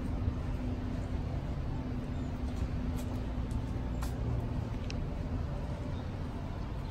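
Downtown street traffic noise: a steady low rumble with a constant engine-like hum, and a few faint ticks about three and four seconds in.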